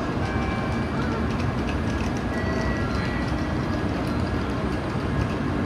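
Tokaido Shinkansen N700-series train running along the station platform, a steady, unbroken noise of the train in motion.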